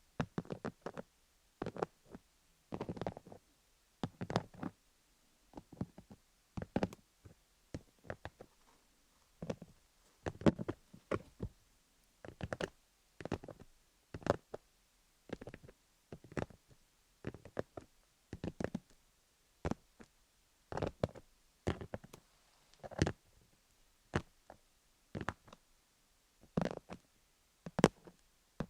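Fingernails tapping and scratching over a rhinestone-studded dummy-head microphone, in short irregular clusters of clicks and scrapes about a second apart.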